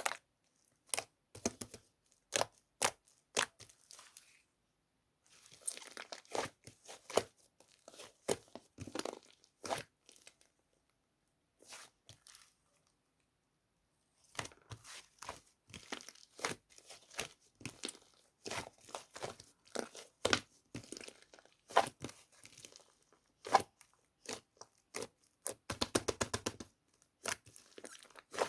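Slime being squished, poked and stretched by hand: irregular sharp clicks, pops and crackles, with a couple of short pauses.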